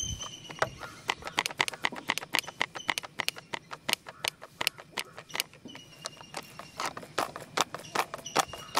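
Plastic pencil box shaken by hand, its loose contents clacking against the case in quick, irregular rattles of several clacks a second.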